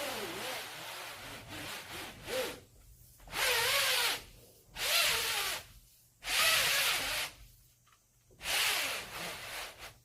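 Repeated hand rubbing strokes on a surface, about five separate passes of under a second each, with a wavering squeak in them.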